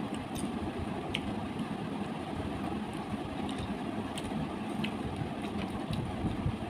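Eating sounds: small clicks of chewing and fingers picking at fried fish, then a bite into a raw French bean, over a steady low rumble of background noise.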